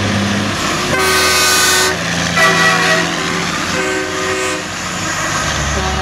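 Semi-truck air horns blown three times, the first about a second long and the loudest, then two shorter blasts, over the low running of big-rig diesel engines.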